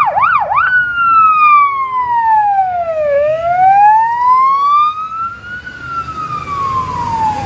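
Police car siren: three quick up-and-down whoops, then a slow wail that falls, rises and falls again over several seconds.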